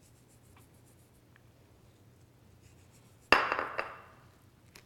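A small ceramic plate set down on a countertop about three seconds in: one sharp clink that rings briefly and fades, with a smaller click just after. Before it there are only a few faint ticks.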